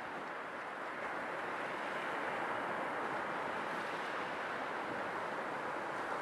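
Sea waves washing on the shore in a steady, continuous surge, swelling slightly about a second in.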